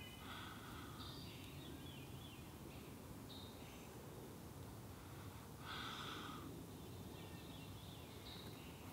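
Long breaths blown into a smouldering tinder bundle to coax a bow-drill coal into flame: two longer blows, about a second in and near six seconds, with softer breaths between.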